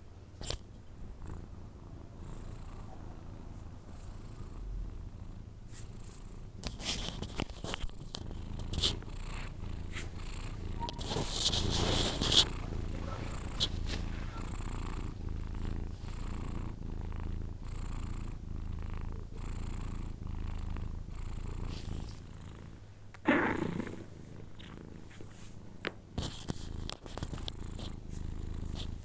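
A sleeping cat breathing with a low, steady rumble, each breath repeating about every second and a half. A louder burst of noise comes near the middle, and a short downward-sliding sound comes later.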